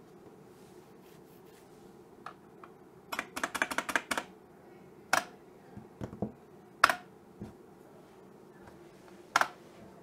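Computer keyboard keys being pressed: a quick run of keystrokes about three seconds in, then single key presses spaced a second or so apart.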